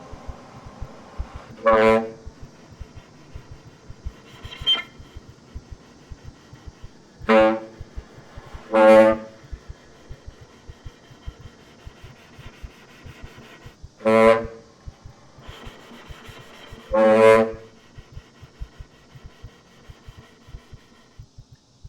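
Baritone saxophone playing five short, loud, low honks spaced a few seconds apart, over a faint background of scattered soft ticks.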